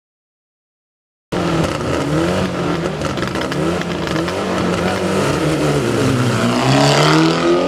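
Silence for about the first second, then a Mitsubishi Lancer Evolution IX rally car's turbocharged four-cylinder engine accelerating hard. Its pitch climbs and drops several times as it goes up through the gears.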